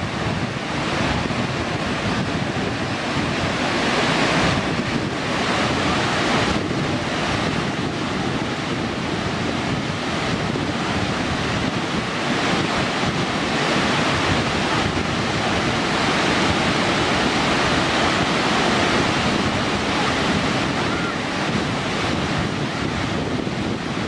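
Burney Falls waterfall: a steady, loud rush of falling water crashing onto rocks and into the pool below.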